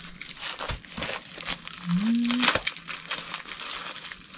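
White plastic packaging crinkling and tearing as it is pulled open by hand, in irregular crackles. A short hum of a voice about two seconds in.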